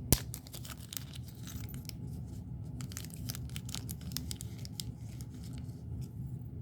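Plastic packaging being torn open and crinkled by hand, a run of quick crackles and rustles, with one sharp knock just after the start.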